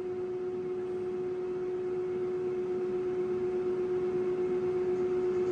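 Haas CNC mill running with its spindle turning an edge finder at 500 RPM: a steady hum at one pitch over a faint hiss, growing slightly louder.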